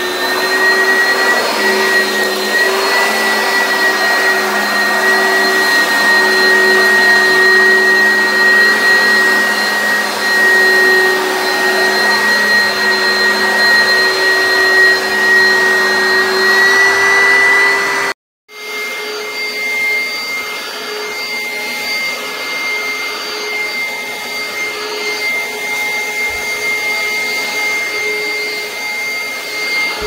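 Oreck Commercial XL upright bagged vacuum cleaner running with a steady motor whine while it is pushed over a wood floor. It breaks off for a moment partway through, then runs on over carpet a little quieter and slightly higher in pitch.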